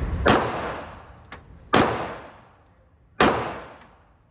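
Three pistol shots fired in an indoor shooting range, about a second and a half apart, each followed by a long echo off the range walls.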